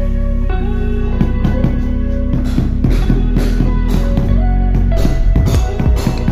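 Background music: sustained guitar and bass notes with drums coming in from about a second in.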